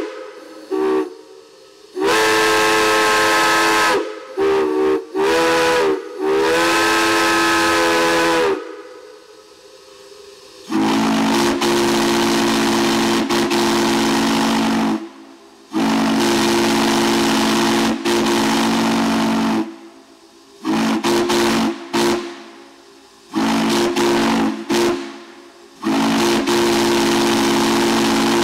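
Steam whistles blown one after another on a steam-fed stand. First comes a higher chime whistle in short and long blasts, its notes bending in pitch for a moment as the valve is feathered. After a couple of seconds of steam hissing comes a lower, deeper chime whistle in a series of long and short blasts, with steam hissing between them.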